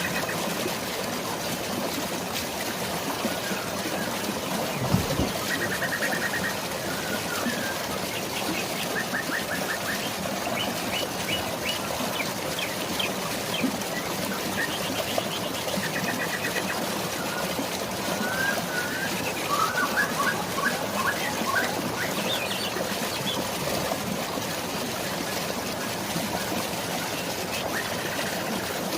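Steady rush of drizzling rain and flowing waterfall water, with birds trilling and chirping in short phrases every few seconds, busiest about two-thirds of the way through. A single brief low thump about five seconds in.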